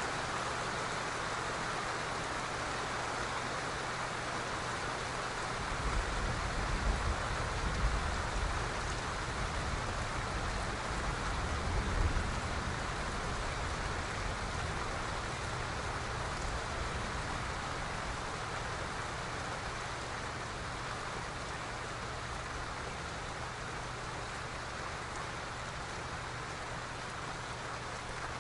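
Steady rain falling, with a low rumble of distant thunder rolling through from about six to twelve seconds in.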